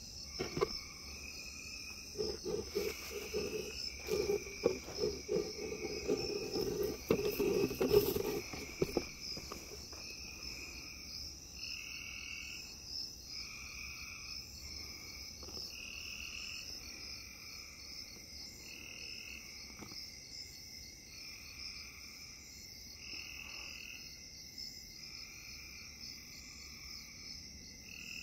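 Night chorus of frogs and insects: a steady high, pulsing insect trill with frog calls repeating every second or two. For several seconds near the start a louder, low, rattling noise with many sharp clicks rises over the chorus.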